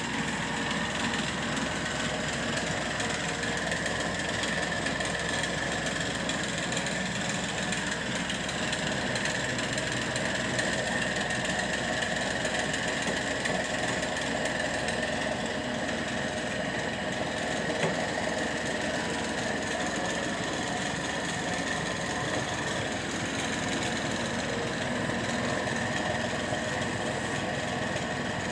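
Drill press running steadily, its motor giving an even, unbroken whine.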